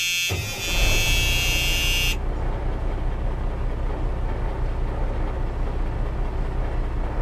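A locomotive horn blows a steady, loud note and cuts off about two seconds in. A low train rumble starts beneath it and carries on.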